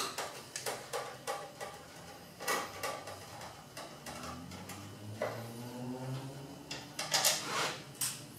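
Hand screwdriver clicking and scraping against the sheet-metal cover of an espresso machine's main circuit-board box as its top screws are undone, with small metal clicks and rattles, the loudest near the end. A low hum sounds for about two seconds midway.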